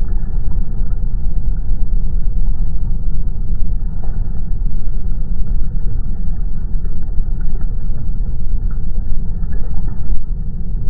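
Deep, steady rumble of outdoor waterside sound slowed down to match slow-motion footage, with everything high cut away; no clear splash stands out from it.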